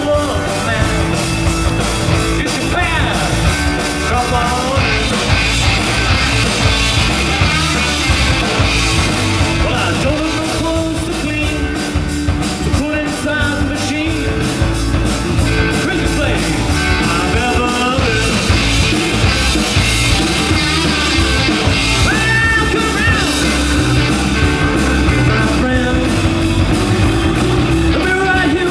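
Rock music played by a band, with a lead vocal singing over a steady beat and a loud, full band sound.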